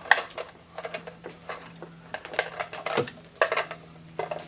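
Sewing machine foot pedal controllers and their cords being handled: an irregular run of clattering knocks and clicks as the pedals are picked up, moved and set down.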